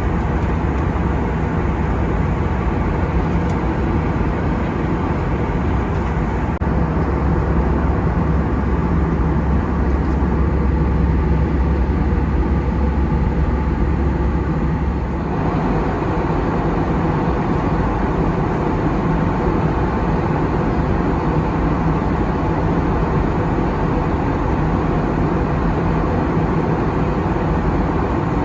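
Steady cabin noise of an Airbus A320 in flight: a continuous rush of air over a low engine drone. About halfway through, the low drone drops away abruptly and the noise becomes more even.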